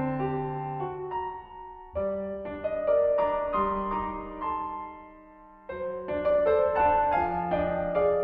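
Background piano music: slow, gentle phrases of chords and melody notes that fade away between phrases.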